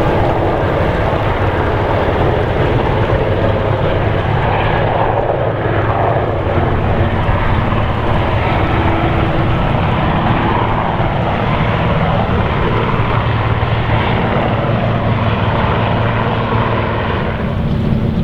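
A vessel's engine running with a steady low drone, mixed with wind noise on the microphone.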